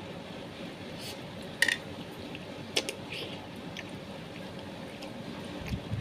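Chewing and wet mouth smacks while eating grilled meatballs, with a few sharp smacks in the first four seconds. A low rumble comes in near the end.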